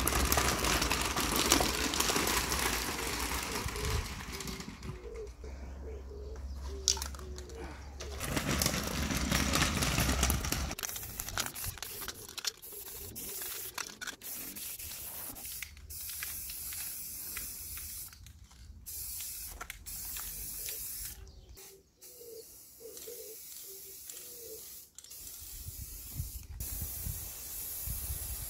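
Aerosol can of spray lacquer hissing as it coats a wire metal shelf. It sprays in a series of bursts, with short breaks between them.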